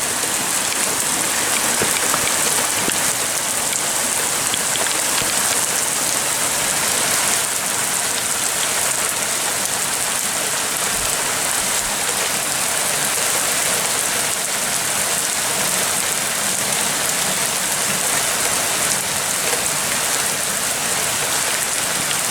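Heavy rain falling steadily, an even hiss of drops that does not let up.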